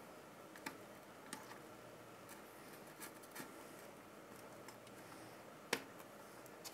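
Cooler mounting spacers being pushed onto the backplate bolts around a CPU socket and snapping into place, giving a handful of faint, sharp clicks, the loudest one near the end.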